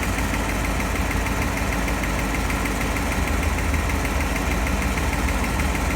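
1956 Ford Thunderbird's V8 engine idling steadily at low RPM, with the air-conditioning system running.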